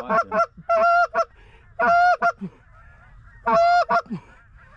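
Hand-blown Canada goose calls: a few quick clucks, then three loud bursts of honks and clucks about a second and a half apart, calling a single goose in to land.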